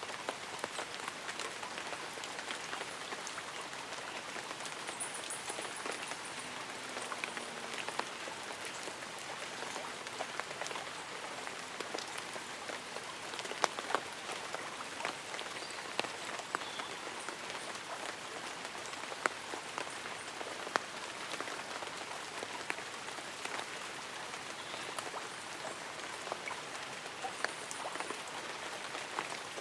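Light rain pattering on tree leaves and an umbrella: a steady soft hiss dotted with many separate drop ticks, a few of them sharper and closer.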